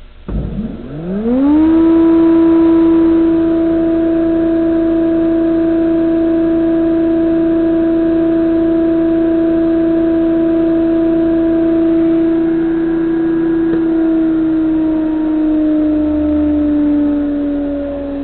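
SCMI F410 16-inch jointer with a three-knife cutterhead on a three-phase motor, starting up: its hum rises in pitch over about a second and a half to full speed, then runs at a steady pitch. Near the end the pitch slowly sinks as the cutterhead begins to coast down.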